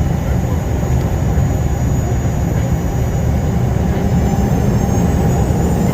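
Dornier 328JET's Pratt & Whitney Canada PW306B turbofans at low power, heard inside the cabin as a steady low rumble with a faint high whine. Near the end the whine begins to climb as the engines start to spool up for takeoff.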